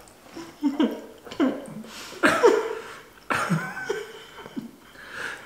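Spicy instant noodles being slurped off chopsticks and eaten, mixed with short bursts of laughter.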